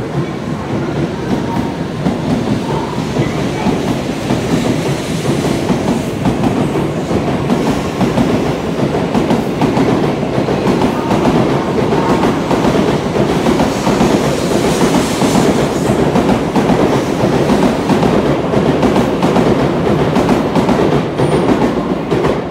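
N700A Shinkansen train accelerating away from the platform, its cars running past with a continuous rush of wheel-on-rail rumble and clatter. The sound grows louder as the train gathers speed, then falls away at the very end as the last car passes.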